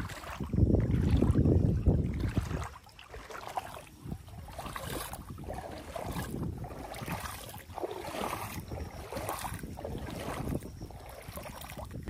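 Footsteps wading through shallow floodwater, each step sloshing and splashing, about one a second. Wind buffets the microphone for the first couple of seconds.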